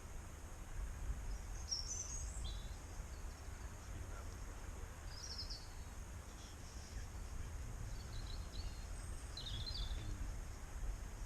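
Small birds chirping a few times, in short high calls near 2 seconds, 5 seconds and again around 8 to 10 seconds in, over a steady low outdoor rumble.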